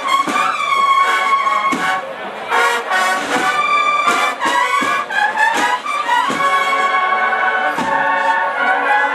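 Banda de cornetas y tambores, a Spanish cornet-and-drum band, playing a processional march live: the cornets sound held, swelling melody lines over regular drum strokes.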